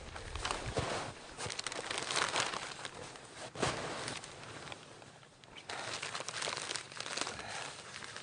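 Canvas tent fabric rustling and crinkling as it is handled and pulled over its frame, in irregular bursts with a short lull about five seconds in.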